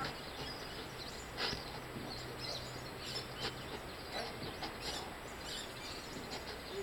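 Outdoor background noise with a steady low hum and scattered short, faint chirps of small birds.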